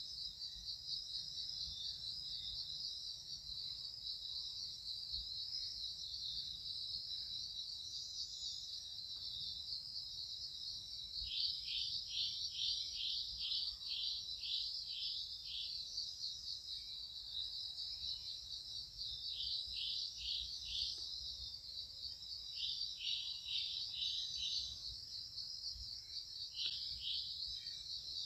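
Dense insect chorus: a steady, high, finely pulsing buzz, with runs of quick falling chirps joining in several times from about a third of the way in.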